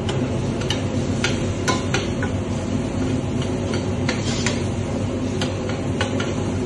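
A metal spoon clinks and scrapes against a stainless-steel frying pan as food in sauce is stirred, about a dozen sharp, irregular clicks. Underneath runs a steady low rumble.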